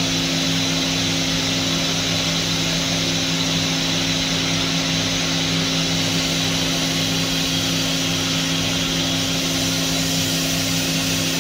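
Roku-Roku Sanyo HC-658 vertical machining centre running under power: a steady machine hum with two steady low tones and a low pulsing throb beneath.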